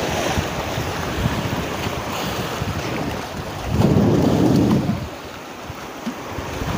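Wind buffeting the microphone over surf washing on a shallow reef edge, with a louder rush for about a second around four seconds in.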